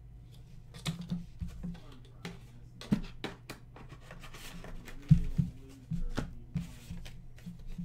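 Trading cards in clear plastic sleeves being handled and set down on a desk mat: a string of light taps, clicks and rustles, with a sharper knock about 3 s in and another about 5 s in. Faint background music plays underneath.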